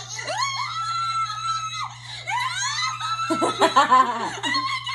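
Women screaming with excitement: long high shrieks that rise and hold, then a louder tangle of overlapping screams and laughter about three seconds in.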